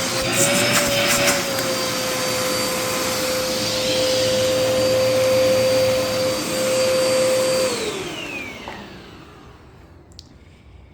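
Dirt Devil Endura Express upright vacuum running with a steady motor whine. About eight seconds in it is switched off and the motor winds down with a falling whine that fades out.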